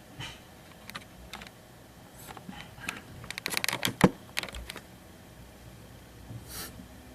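Irregular clicks and taps of small hard objects being handled on a workbench, with a quick flurry of clicks about halfway through and a soft rustle near the end.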